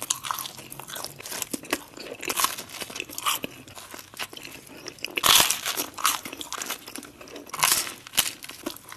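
Pizza being eaten: crunchy bites into the crust and chewing, a run of short crackles, with the loudest crunch about five seconds in and another strong one near the end.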